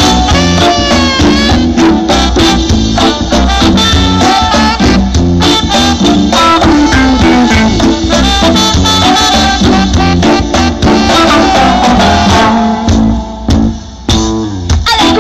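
Live reggae band playing an instrumental break: steady bass and drums under melodic lead lines. The band drops out briefly near the end, then comes back in.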